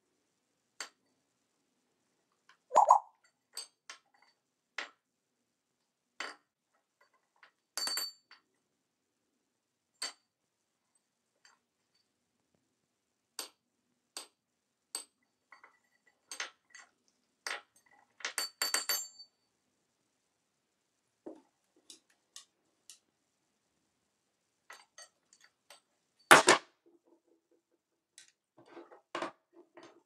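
Scattered clicks and taps from an African grey parrot's beak and feet on a countertop and an open wooden drawer as he climbs down into it, with a louder knock a few seconds before the end.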